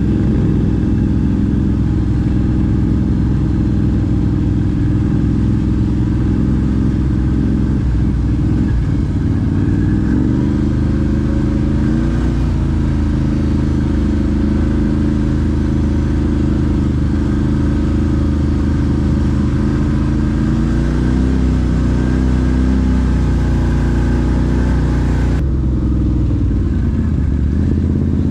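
CFMOTO ATV engine running while the quad is ridden along a gravel track. Its note rises and falls a few times with the throttle, climbing near the end.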